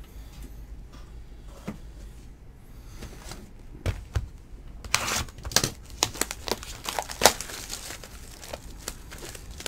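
A few knocks as a sealed trading-card hobby box is handled, then, from about five seconds in, a run of crinkling and tearing as its plastic shrink wrap is ripped off.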